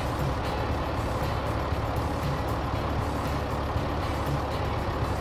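Tractor engine sound effect running steadily with a low rumble.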